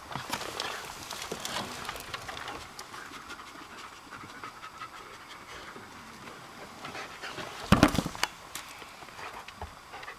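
A dog panting, with a loud knock or thump a little before eight seconds in.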